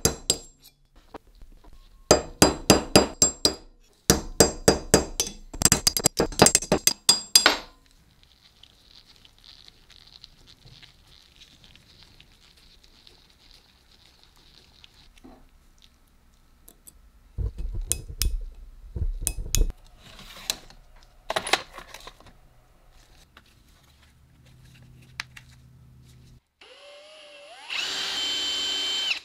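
A hammer strikes a steel pin punch on the cast-iron body of a vise in three quick runs of sharp metallic ringing blows. Scattered softer knocks and clicks follow. Near the end a drill spins up with a rising whine and runs steadily, drilling into the rusty vise jaw.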